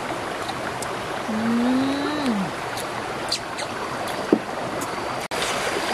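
Steady rush of a rocky mountain stream. About a second in, a drawn-out 'mmm' hum rises then falls, and a sharp click comes past the four-second mark.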